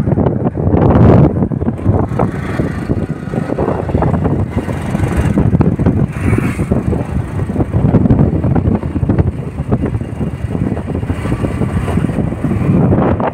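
Strong wind buffeting the phone's microphone in uneven gusts, a deep rumble that keeps swelling and dropping.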